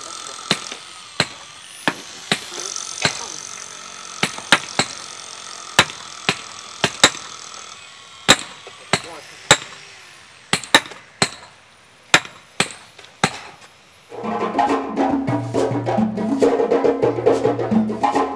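Sledgehammers striking metal tent stakes into gravelly ground: sharp, irregular strikes from several people hammering at once. About fourteen seconds in, music with drums and wood-block-like percussion starts.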